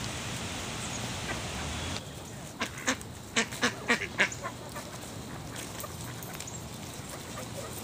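A steady rushing hiss, then from about two seconds in a quick run of short mallard duck quacks, about a dozen over two seconds, which then give way to faint background noise.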